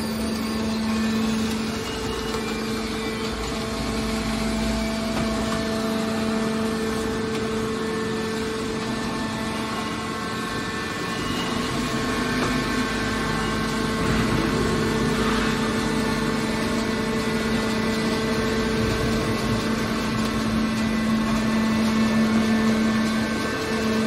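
Hydraulic power unit of an industrial scrap metal baler running with a steady hum.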